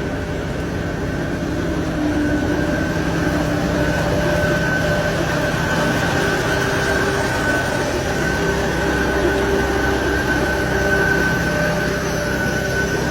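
Heavy farm machine engine running steadily under load, with a constant high whine over the low engine note.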